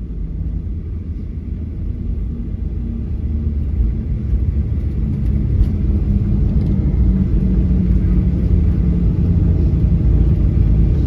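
Airliner cabin noise heard from a window seat: a steady low rumble of engines and airflow that grows louder over the first few seconds and then holds.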